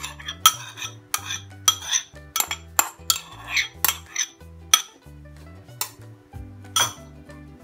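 Metal spoon clicking and scraping against a plastic yogurt pot as yogurt is scooped out into a bowl: quick clicks, two or three a second, thinning out after about five seconds. Background music with a steady bass line plays underneath.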